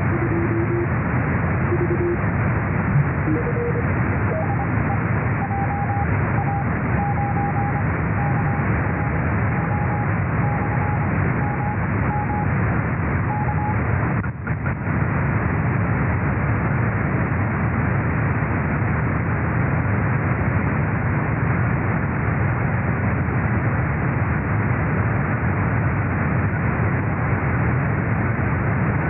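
Morse code (CW) signal relayed through the RS-44 amateur satellite, heard on a software-defined radio receiver as a thin keyed tone in steady receiver hiss. The tone steps up in pitch twice as the receiver is retuned, and it stops about halfway through after a brief dropout, leaving only hiss.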